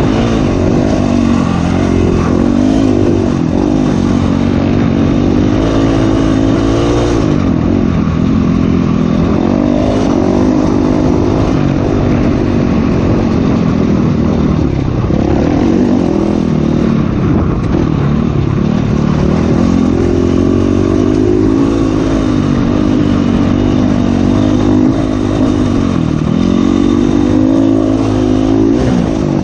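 Dirt bike engine being ridden hard, its pitch rising and falling every few seconds with throttle and gear changes, heard on board from the rider's seat.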